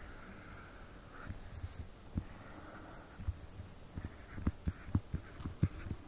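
Soft, low thumps and taps at an irregular pace, growing more frequent and louder from about four seconds in, with faint scratching between them: desk handling noise while drawing on a computer.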